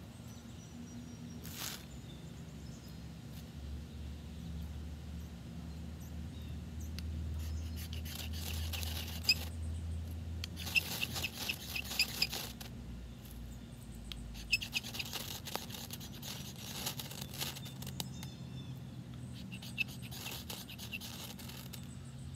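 Ferro rod scraped hard with a metal striker in several bursts of quick strokes, throwing sparks onto wood shavings and feather sticks to light them. A low steady rumble runs under the first half.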